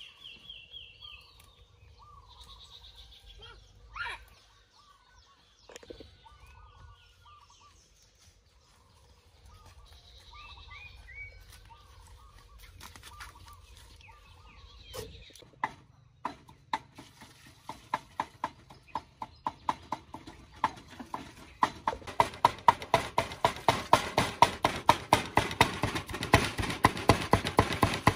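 A cleaver chopping garlic and red chillies on a wooden board in quick, even strokes, about three a second, starting about halfway through and growing louder. Before that, only faint bird calls.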